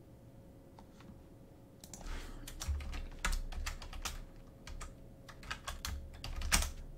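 Typing on a computer keyboard: a quick, irregular run of keystrokes that starts about two seconds in, the loudest stroke near the end.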